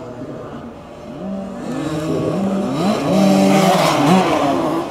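Two-stroke 50cc youth motocross bike engines revving, the pitch rising and falling with the throttle; it gets louder and peaks about three to four seconds in as a bike passes close.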